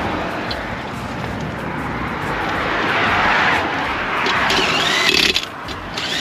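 Highway traffic rushing past, swelling and fading as vehicles go by. Near the end comes a short rising whine.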